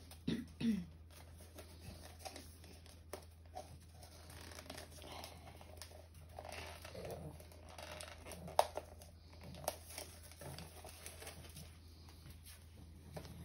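Gift wrapping and packaging rustling and crinkling as a small present is unwrapped by hand, with scattered light clicks and taps from the handling.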